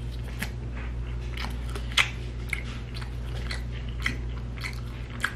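Close-up biting and chewing of fried chicken: a run of short crisp, wet mouth clicks and crunches, the sharpest about two seconds in, over a steady low hum.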